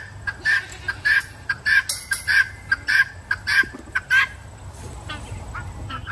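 Poultry calling: a run of short, harsh, evenly repeated calls, about three a second, that die down after about four seconds.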